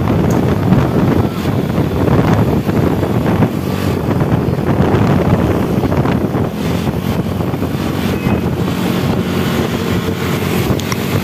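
A vehicle driving on the road: steady engine drone and road noise, with heavy wind buffeting on the microphone.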